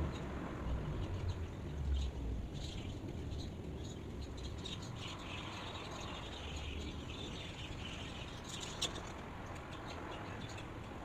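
Small birds chirping in short high calls, densest in the middle, over a steady low rumble of outdoor ambience. A single sharp tick comes near the end.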